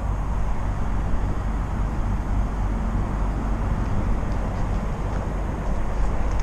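Steady low engine rumble, like a large vehicle idling or running, with an even haze of road noise over it.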